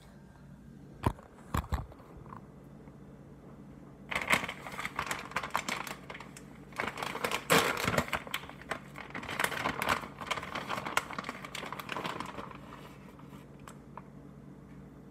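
Two sharp knocks about a second in, then several seconds of irregular plastic crinkling from a resealable bag of shredded mozzarella being handled and reached into.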